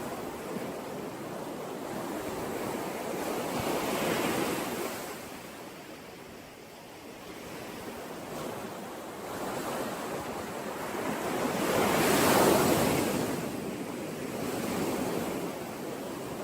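Sea waves washing onto the shore in slow swells, the surf rising and falling, loudest about four seconds in and again around twelve seconds.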